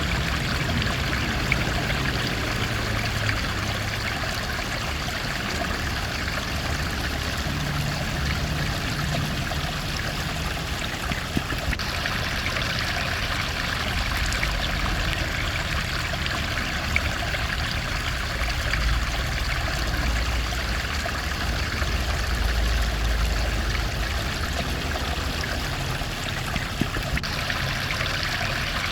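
Running water of a stream, a steady rushing flow.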